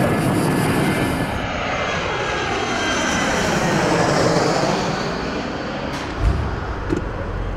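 Jet airplane passing overhead: a steady rushing engine noise that swells to its loudest about four seconds in and then eases, its tone sweeping slowly down and back up. Two short soft knocks come near the end.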